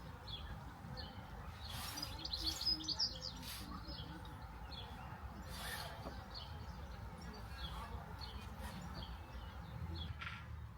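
Small birds chirping, short high calls repeated throughout, with a louder flurry of chirps about two seconds in.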